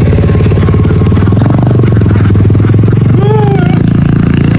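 Engine running steadily and loudly with an even, rapid pulse. A short rising-and-falling call cuts through it about three seconds in.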